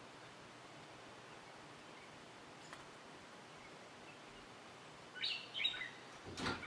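Faint steady outdoor hush, then about five seconds in a few short, high chirping calls falling in pitch, the peeping of wild turkey poults, followed by a brief knock near the end.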